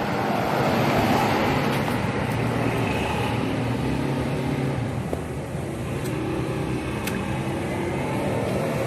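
Steady background hum, like road traffic, with a few light clicks partway through as small parts are handled.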